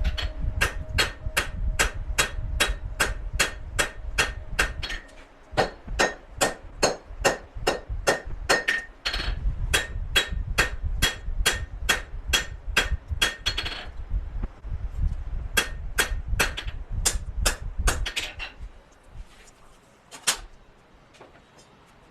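Hammer blows on hot coil-spring steel on an anvil as the blade stock is flattened, a steady run of ringing strikes about two to three a second. Twice it breaks off briefly. It stops about eighteen seconds in, with one lone strike a couple of seconds later.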